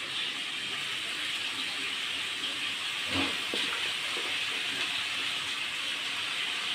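Steady sizzling hiss from a hot wok of onion-and-spice masala as chopped spinach leaves are tipped in and pressed down by hand, with a couple of soft knocks about three seconds in.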